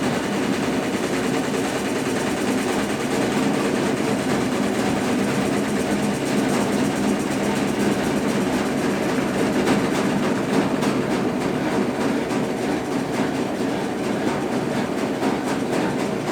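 Consul Facilite CWC10 top-load washing machine running its wash stage: the motor drives the agitation with a steady churning of water and a load of bedding and towels, and a faint regular clatter.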